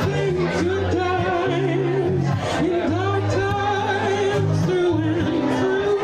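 Music: a woman singing a slow song with held, wavering notes over acoustic guitar.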